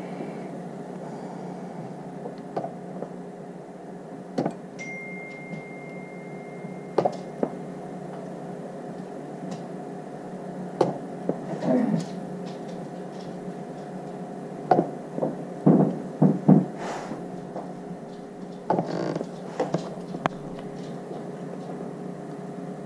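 Battery spot welder firing on nickel strip over cells, a series of sharp, short snaps at irregular intervals, several in quick succession in the middle stretch, over a steady low hum. A high steady beep sounds for about three seconds a few seconds in.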